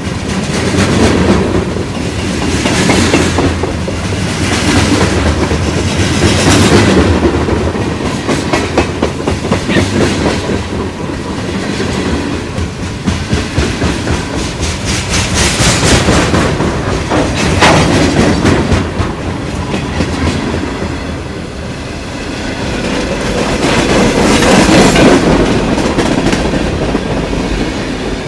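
Freight train passing at close range: the steady rumble of the cars rolling by, with the clickety-clack of wheels over rail joints. The sound swells and eases every few seconds as the cars go past.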